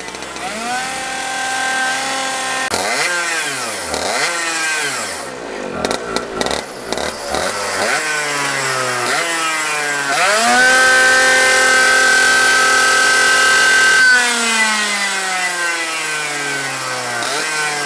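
Two-stroke racing kart engines revving, the pitch climbing and falling as the throttle is worked, with more than one engine overlapping. About ten seconds in, one engine holds a steady high note for some three seconds, then winds down.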